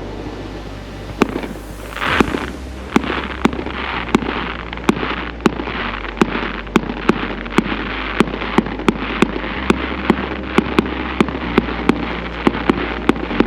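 Fireworks going off in a rapid, regular series of sharp bangs that quickens to about three a second, over a continuous hiss.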